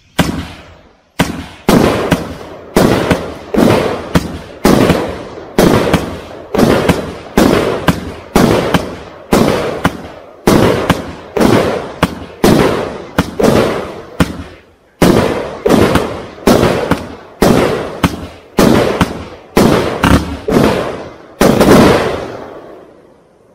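A 25-shot barrage firework cake ('Hawk', 1.3G) firing its shots in quick succession, a steady run of sharp bangs, a little more than one a second. Each bang fades off. The last loud bang comes about 22 seconds in.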